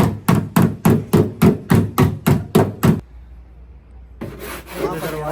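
Hammer striking car body sheet metal in an even run of about a dozen blows, some three a second, as a panel is beaten out. The blows stop about three seconds in, and just over a second later a steady rasping, rubbing sound starts, like filing or sanding of the bodywork.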